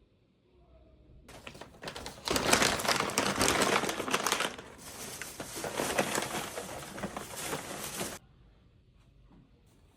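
Crinkling, rustling handling noise that starts about a second in, is loudest from about two to four and a half seconds in, and cuts off suddenly about eight seconds in.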